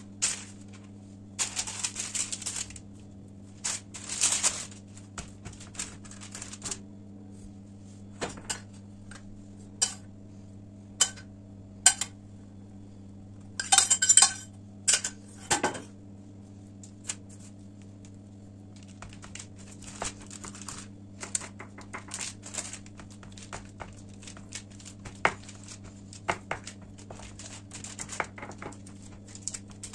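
Kitchen handling sounds: a baking tray and its parchment paper knocking and rustling, with a sharp ringing clink of glass or metal about halfway through. In the second half, many soft taps and crinkles as hands press dough out on the paper-lined tray, over a steady low hum.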